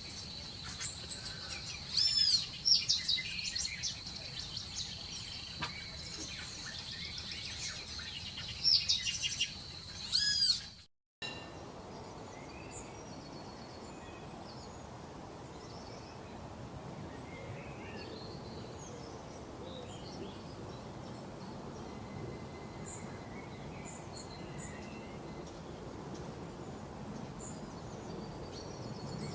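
Wild birds singing and calling. First come loud, arching chirps over a steady high tone. About eleven seconds in it cuts to a quieter recording of scattered, fainter chirps over steady background noise.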